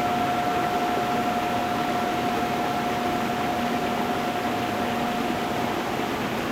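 Stream water running over stones as a steady rush, with a singing bowl's held tone ringing over it and fading out near the end.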